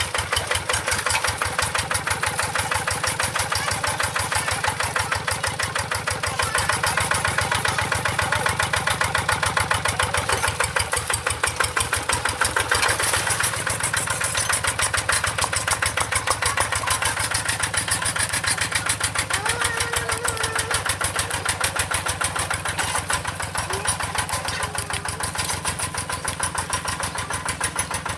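Single-cylinder diesel engine of a G1000 two-wheel hand tractor running with a steady, rapid chug as the tractor is driven through paddy mud, getting a little louder about six seconds in.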